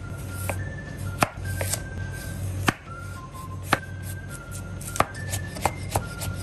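Kitchen knife chopping a carrot on a wooden cutting board into thin strips: sharp single knocks about once a second, with a few lighter ones between. Background music plays underneath.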